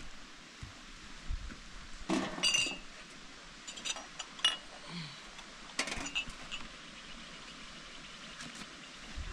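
Metal dishes clinking as a metal tray is handled over a plastic washing basin. Scattered sharp clinks come in small clusters, about two, four and six seconds in, and one of them rings briefly.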